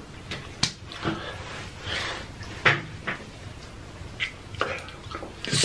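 A scattered series of light knocks and clicks, roughly one every half second to a second, with a few short breathy sounds between them. The loudest thing, a brief rushing burst, comes right at the end.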